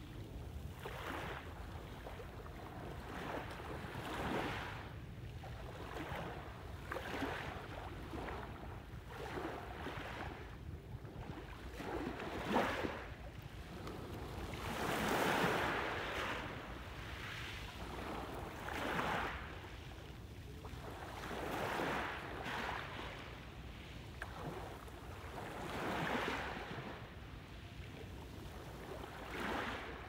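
Small waves washing up onto a pebble beach, a soft surge of water every few seconds, the largest about halfway through.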